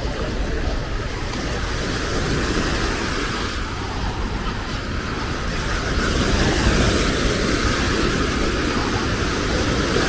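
Busy beach ambience: a steady rush of small waves breaking on the shore under the murmur of beachgoers' voices, growing a little louder about six seconds in.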